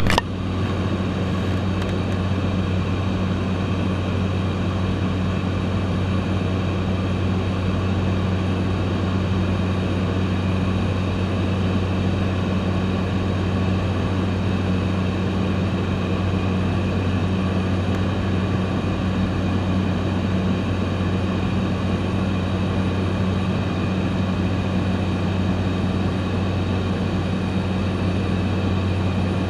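A small high-wing propeller plane in cruise flight, heard from inside the cabin. The engine and propeller drone as a steady, unchanging low hum over a constant rush of air.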